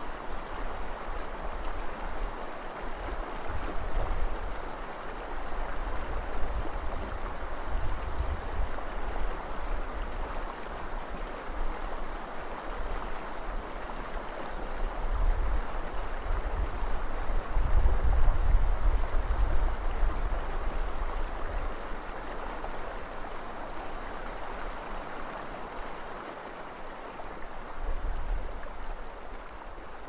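The Eel River flowing over a gravel bar and riffles: a steady rush of running water. Under it is a low rumble that swells and fades, strongest about two-thirds of the way through.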